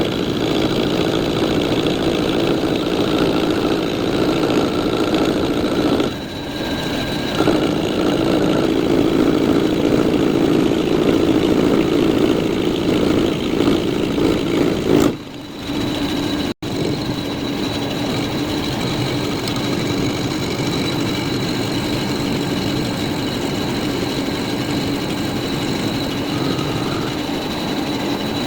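Lathe running steadily with machine-shop noise. The sound dips briefly about six seconds in, then falls away and cuts off abruptly just past the middle before resuming at a steady level.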